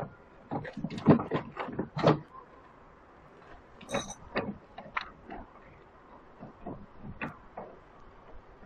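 Steel parts knocking and clinking as a bolt is fitted through the connector plate joining a shaking table's head motion to its table surface and a nut is set on it: a quick run of sharp knocks in the first two seconds, then scattered lighter clicks.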